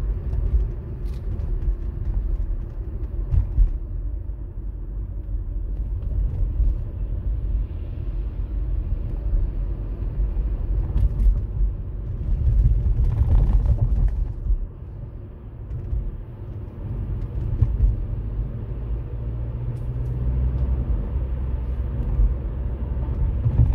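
Car driving on a city road, heard from inside the cabin: a steady low rumble of engine and tyres, with a few faint clicks.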